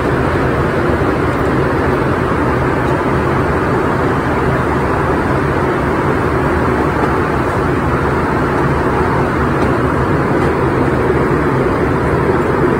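Steady engine and airflow noise inside a jet's passenger cabin, a loud, even noise that holds without change.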